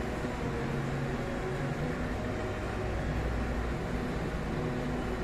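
Steady room noise, a low hum with a hiss over it, with faint low tones drifting in and out.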